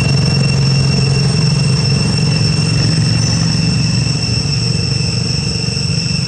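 A steady high-pitched insect whine, two thin unchanging tones, over a loud low steady rumble that eases slightly partway through.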